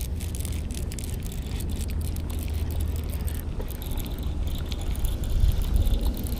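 Wind buffeting the action camera's microphone as a steady low rumble, with scattered light clicks and ticks over it.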